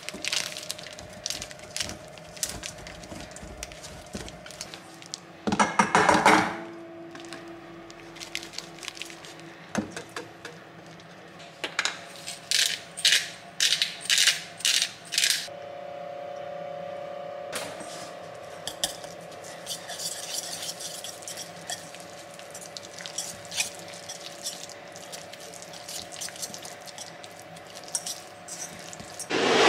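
Kitchen cooking sounds: utensils clinking and knocking against dishes and pans, with a run of about six sharp knocks about twelve seconds in. A steady hum comes in about halfway through.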